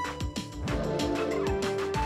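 Background music with a steady beat and held melody notes; a sliding phrase bends down in pitch about a second in.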